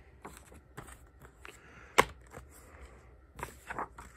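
A plastic DVD case being handled: light rustling and small clicks, with one sharp plastic click about two seconds in.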